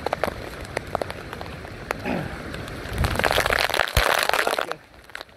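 Heavy hurricane rain pouring down, with sharp ticks of drops striking close by. It swells louder about three seconds in, then drops away suddenly near the end.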